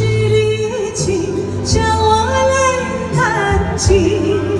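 A woman singing a slow Chinese ballad with vibrato over an instrumental accompaniment with a steady beat.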